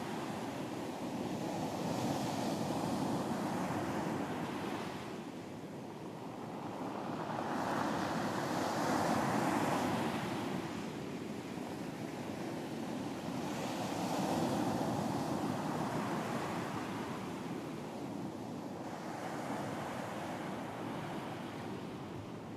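Ocean waves breaking on a beach, a continuous surf wash that swells and ebbs in slow surges every five or six seconds, with some wind.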